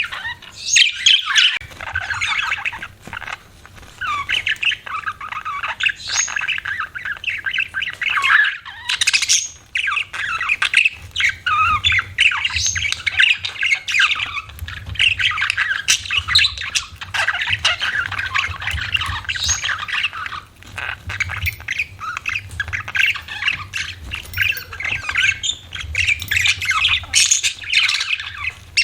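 Budgerigars chattering: a dense, continuous stream of warbling chirps and squawks, with brief lulls about a second and a half in and around eight seconds in.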